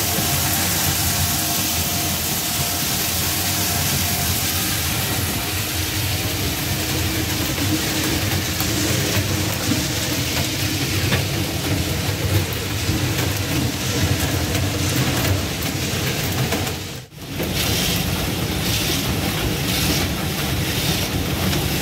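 Steady din of palm kernel plant machinery: palm nuts pouring down a metal chute and a screw conveyor turning in its trough. The noise drops out briefly about seventeen seconds in, then returns.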